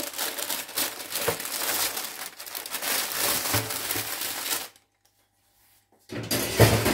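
Baking parchment crinkling and rustling as a baked cake layer on it is pulled out and slid onto a wooden board. About two-thirds of the way in the sound drops to silence for over a second, then a louder rustle with a low thump follows near the end.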